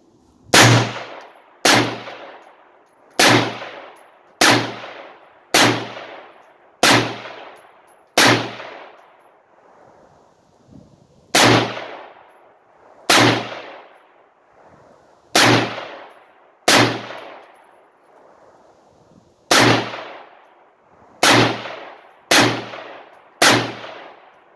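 Springfield Saint Victor AR-15 rifle, fitted with a muzzle brake, firing 5.56 M193 rounds semi-automatically. About fifteen single shots ring out, each a sharp crack with a decaying echo, roughly one every one to two seconds, with short pauses after the seventh and eleventh shots.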